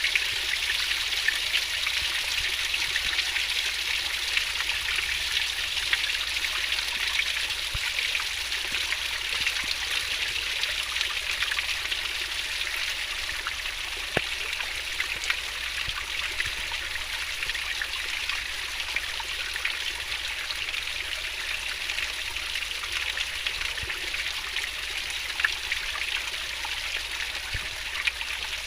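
Fast-flowing stream water rushing and babbling steadily over rocks, with small splashes and droplet ticks.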